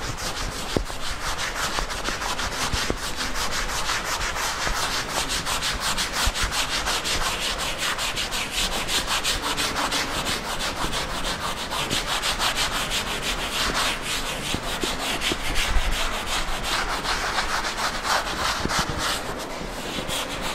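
A blackboard being wiped with an eraser: quick, steady back-and-forth rubbing strokes scraping chalk off the board.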